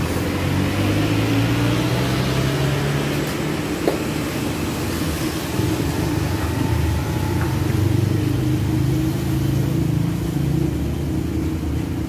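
Road traffic: vehicle engines running and passing on the street, a steady low rumble with slowly shifting pitch. A short knock about four seconds in.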